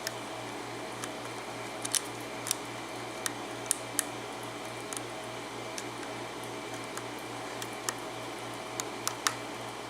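Irregular light metallic clicks and ticks of a lock pick working the pin stack of an Abus 72/40 brass padlock under tension, as pins are lifted and set. A steady low hum runs underneath.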